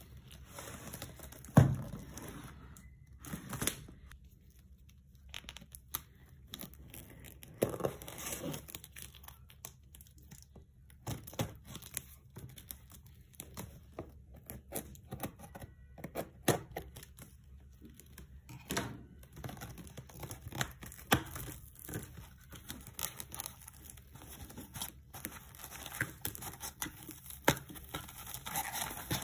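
Cardboard box being unwrapped and opened by gloved hands: plastic wrapping torn and crinkled, with scattered knocks and rustles of cardboard flaps and packing. One loud knock comes about one and a half seconds in.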